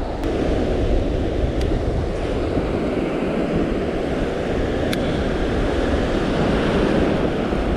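Steady wash of sea waves mixed with wind noise on the microphone, with three faint clicks.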